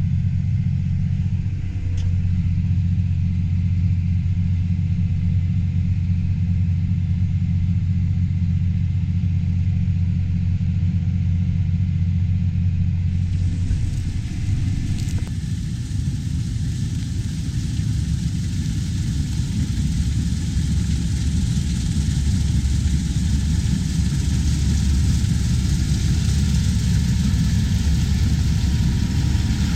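Heavy farm machinery engine running steadily with a low hum. About halfway through the sound changes abruptly to a rougher, noisier running with more hiss.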